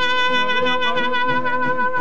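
Brass music: a trumpet holds one long steady note over a lower line that moves from note to note.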